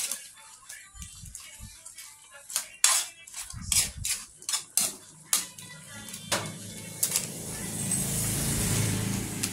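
Background music, with a spatula clicking and scraping against a frying pan as shrimp in a reducing sauce are stirred. A sizzling hiss builds near the end as the sauce cooks down.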